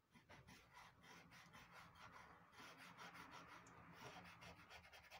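Faint, quick rubbing strokes of a cotton bud blending pastel pencil on Clairefontaine Pastelmat paper.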